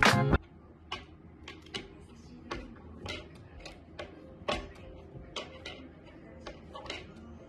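Music cuts off just after the start. What follows is quiet, irregular light taps and clicks on a wooden tabletop, about one or two a second.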